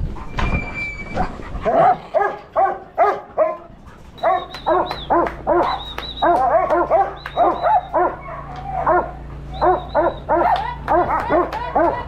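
Working sheepdog barking close to the microphone in a rapid, steady run of short barks, about two a second, the way a yard dog barks to drive sheep along.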